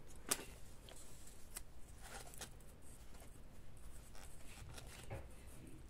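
Faint rustling of paper with a few light taps as small paper pieces are picked up and laid on a journal page.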